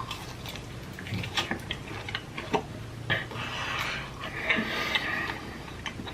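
Close-miked eating: scattered small clicks and wet mouth sounds of biting and chewing food just dunked in sauce.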